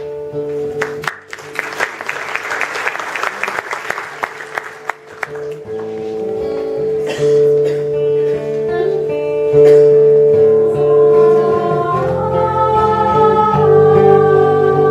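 Acoustic guitar playing sustained chords, with a few seconds of audience applause about a second in. Near the end, a women's vocal group comes in singing in harmony.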